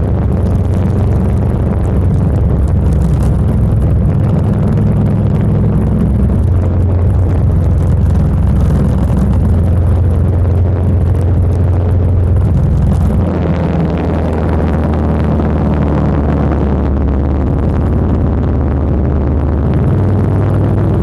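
Motorcycle engine running steadily under way, with wind rushing past the windscreen. The low rumble eases about two-thirds of the way through while the wind noise grows.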